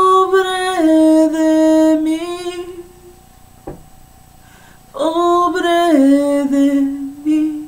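A woman singing unaccompanied in two long held phrases, each sliding down from a higher note to a lower one and holding it, with a pause of about two seconds between them.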